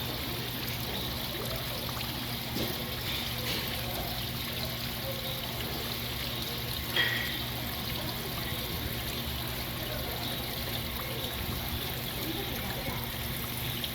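Water trickling and running steadily over a low steady hum, with one short sharp clack about seven seconds in.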